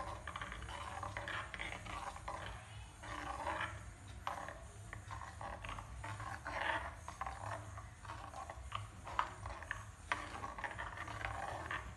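Steel spoon stirring and scraping through herbal paste in coconut oil in a metal kadai, a soft swish every second or two over a steady low hum, as the oil heats on a low flame.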